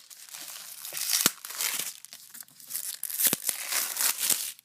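Crinkling and tearing of the wrapping on a brick of firecrackers as its seal is broken, an irregular crackle with two sharper snaps, one about a second in and one past three seconds in.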